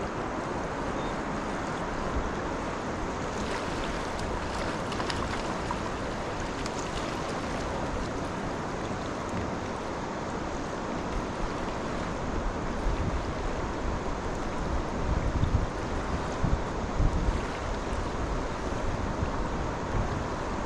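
Steady rush of river water, with gusts of wind buffeting the microphone in the second half.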